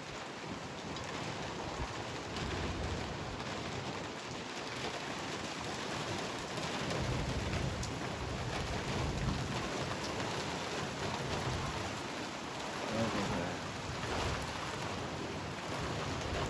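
Heavy rain falling steadily in a thunderstorm, with a low rumble of thunder swelling about halfway through and rolling on.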